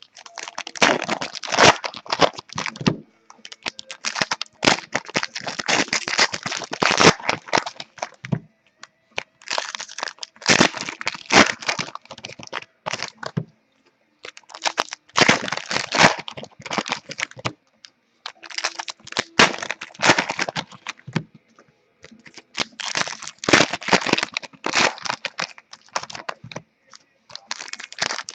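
Trading-card pack wrappers crinkling, crackling and tearing open as packs of 2014 Contenders football cards are ripped open by hand. The sound comes in bursts of a few seconds, with short pauses between them.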